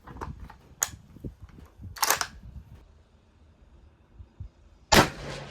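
A single rifle shot from a Ruger American bolt-action in .270 Winchester near the end, loud and sharp with a tail that dies away. Earlier come a sharp click and a brief rasping clatter of handling noise.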